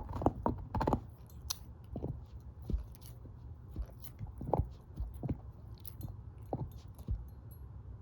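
Shepherd-mix dog chewing a bone, with irregular sharp crunches, several in quick succession in the first second and then spaced out.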